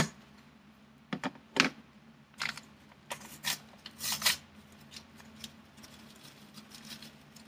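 Clicks, taps and short scrapes of kitchen utensils and containers being handled while seasoning is measured out. About a dozen sharp sounds fall in the first four seconds, then only a few faint ones.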